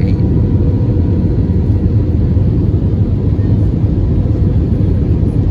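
Steady low drone of an Airbus A320's engines, heard inside the passenger cabin.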